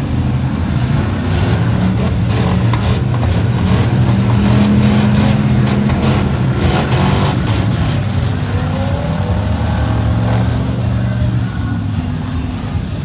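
Demolition derby cars' V8 engines running and revving together in a loud, steady drone. A few sharp knocks come through in the middle.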